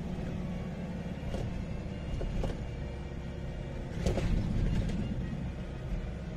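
Steady low rumble of a delivery vehicle's engine and tyres, heard from inside the cab while driving, with a few short knocks or rattles, the loudest about four seconds in.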